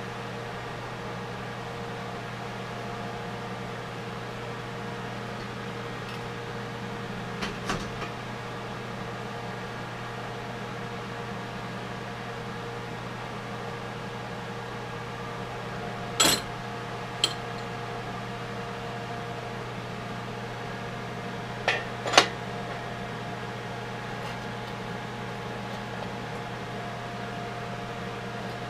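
Steady electrical hum with a fan-like whir, broken by a few sharp clicks: a pair about eight seconds in, two about sixteen seconds in, and the loudest near twenty-two seconds.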